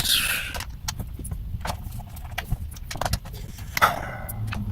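Scattered small clicks and rattles of plastic instrument-cluster parts and screws being handled, with two brief scraping rustles, one at the start and one about four seconds in.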